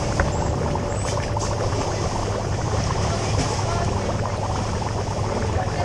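Seafood market ambience: water running and pouring into live seafood tanks, over a steady low hum and scattered small clatter.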